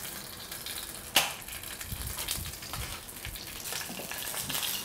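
Fluke pieces frying in oil in a frying pan, a faint steady sizzle, with a single sharp knock about a second in.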